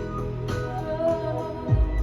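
Music with singing and a steady beat, played back over a two-channel stereo speaker system; a deep bass note comes in near the end.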